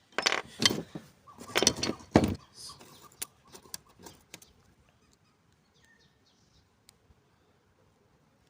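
Hand work on a heavy 25 mm battery cable: a few loud, noisy strokes in the first two seconds or so, then a handful of faint clicks and ticks.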